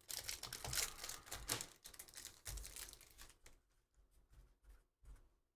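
Plastic trading card pack wrapper crinkling as it is pulled off the cards. The crackle is dense for about three seconds, then thins to a few faint clicks and rustles as the cards are handled.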